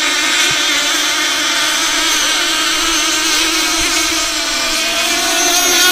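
Several small outboard boat engines running at high revs together, a steady high-pitched drone that sags briefly about four to five seconds in and then picks up again.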